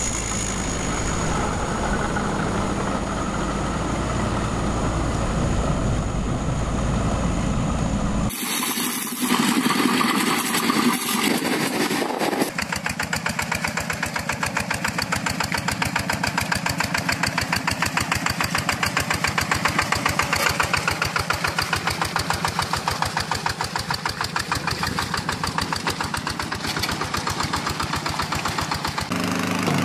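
Tractor-driven pumpkin seed harvester running, with its engine and machinery heard steadily. The sound changes abruptly about a third of the way in, and then settles into a steady engine run with a fast, even pulse.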